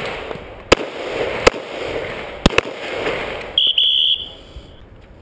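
Four shots from a Glock pistol fired at bowling pins, the last two close together, each followed by a long echo off the range. About three and a half seconds in comes a high electronic beep lasting about half a second.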